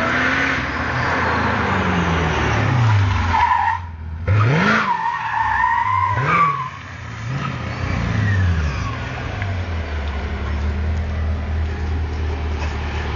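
Mercedes CLK DTM AMG's supercharged V8 revving up and down several times while the tyres squeal as the car slides on tarmac, then settling into a steady idle for the last few seconds.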